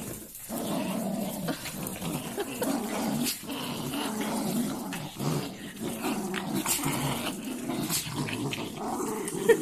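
Two Pomeranians growling continuously as they pull against each other on a cloth held in their teeth in a tug-of-war.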